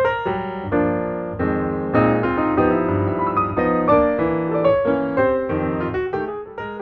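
Background music led by piano, with runs of struck notes and chords, growing quieter near the end.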